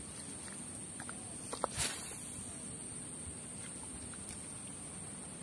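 A spinning rod being cast: a couple of small clicks, then one brief swish about two seconds in. A faint steady hiss and a thin high whine sit under it.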